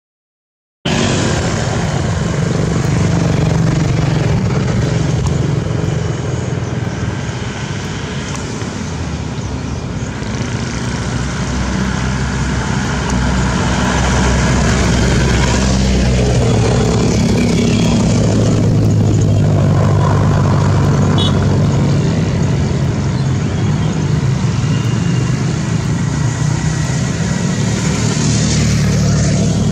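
Mitsubishi Fuso Canter light truck's diesel engine pulling steadily uphill under load, mixed with the engines of motorbikes passing close by. The traffic sound starts abruptly about a second in.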